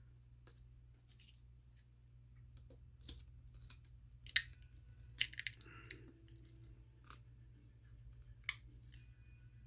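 Plastic film and laptop parts being handled: a handful of scattered sharp clicks and crinkles over a faint steady low hum.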